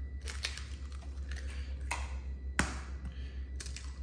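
Eggs being tapped and cracked open over a foil pan: a handful of short, sharp taps and cracks, the clearest about two seconds and two and a half seconds in, over a low steady hum.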